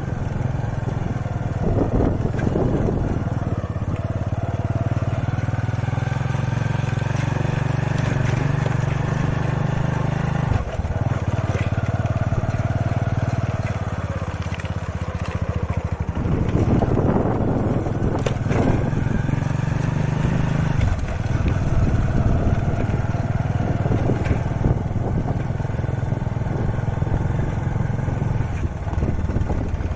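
Motorcycle engine running steadily under way, with a few brief dips in its note.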